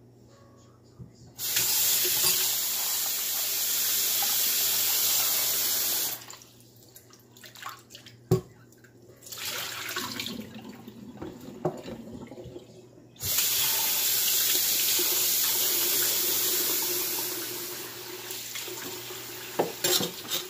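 Kitchen tap running into a stainless steel sink, turned on about a second and a half in and off around six seconds. Water is then poured off a glass bowl of raw shrimp into the drain, with one sharp knock near eight seconds. The tap comes on full again near thirteen seconds and settles to a softer flow over the shrimp in the bowl near the end.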